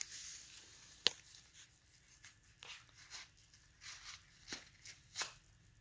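Faint rustling as an unwrapped gift and its packaging are handled, a few short scrapes spread out, with one sharp click about a second in.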